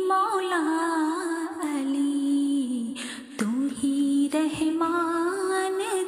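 A woman's voice singing an Ismaili giryazari zikr tasbih in a slow, sustained melody that glides between held notes, with a short break about three seconds in.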